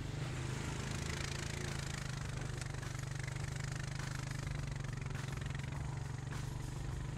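ATV engine running steadily at a low, even speed, with the rattle and rush of the machine rolling along a dirt trail.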